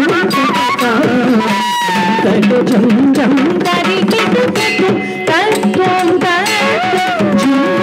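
Live Carnatic accompaniment in Adi tala for a Bharatanatyam dance: crisp mridangam strokes under a gliding melody of voice and bamboo flute, over a steady drone.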